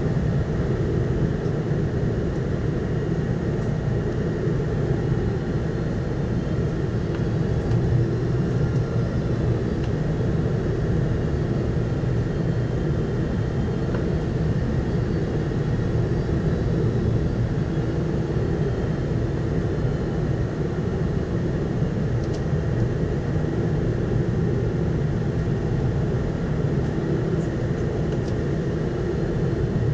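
Steady cabin noise of a Boeing 747-400 descending on approach, heard from a window seat beside the wing: a low, even roar of engines and airflow with no change in level.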